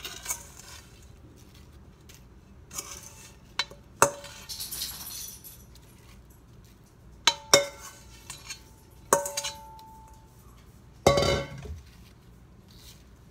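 Metal spoon clinking and scraping against a metal mixing bowl while sliced, sugared apples are spooned into a pie crust: several sharp clinks, some ringing briefly, with a soft sliding and scraping of apple slices after one of the louder clinks.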